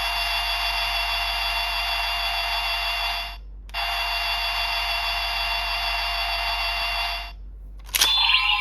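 Electronic sound effect from a Bandai DX GUTS Sparklence transformation toy through its small speaker. A steady, buzzy, hissing tone plays for about three seconds, stops briefly, then plays again for about three and a half seconds. A click and a new sound start near the end.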